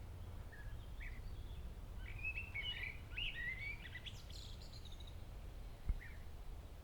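Small birds chirping and twittering, a quick run of high chirps in the middle with a few single chirps around it, over a steady low rumble. A short thump about six seconds in.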